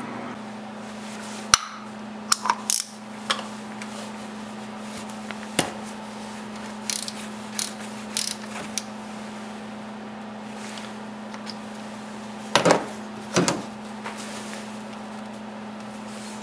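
Oil-filter cap wrench and ratchet clicking and knocking against the canister of a Subaru FA engine's oil filter as it is worked loose: a dozen or so sharp, irregular clicks and clunks, grouped in short clusters. A steady low hum runs underneath.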